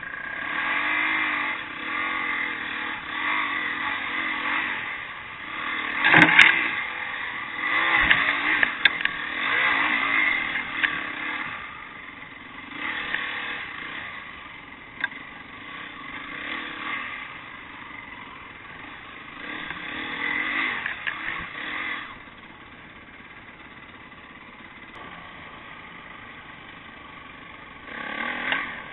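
Off-road dirt bike engine revving up and easing off in surges over a rough woodland trail, with a few sharp knocks and clatter of the bike over bumps. It settles to a quieter steady run for several seconds near the end before picking up again.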